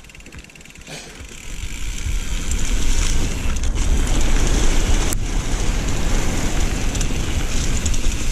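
Wind buffeting the action camera's microphone, mixed with the rattle and rolling of mountain-bike tyres over dirt and fallen leaves on a downhill run. It grows much louder about two seconds in and stays loud.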